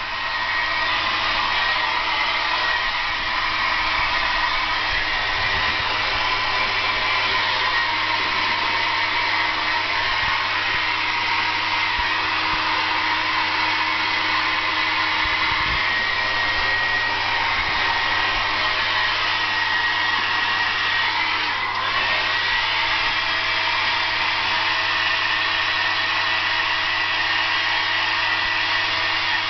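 Hair dryer running steadily with an even blowing rush and a faint high whine, dipping briefly about twenty seconds in.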